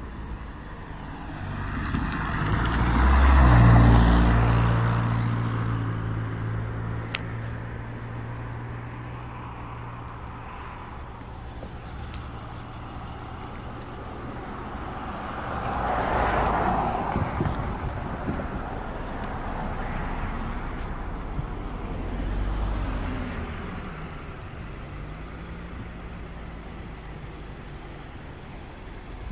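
Road traffic: cars and trucks passing one after another on a road at a railroad crossing. The loudest passes about 3 to 4 seconds in, followed by a steady engine hum, and two smaller passes come about halfway through and about three-quarters of the way through.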